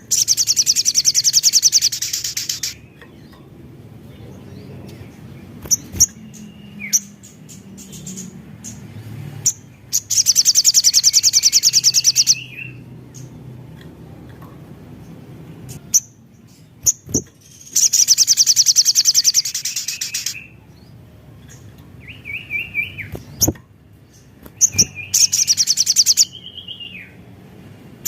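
Crimson sunbird (sogon) singing: loud, very rapid high trills lasting two to three seconds each, given four times, with shorter, lower slurred notes in between. A few sharp clicks sound in the gaps.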